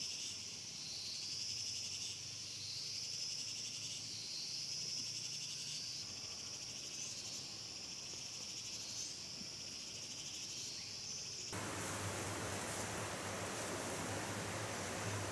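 An insect chorus trilling high and steady, swelling and fading slowly. About eleven and a half seconds in it cuts abruptly to a steady rushing noise.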